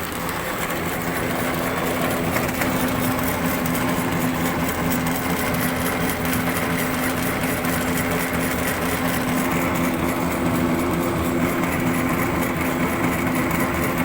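A small engine running steadily, its level rising slightly in the first second and then holding even.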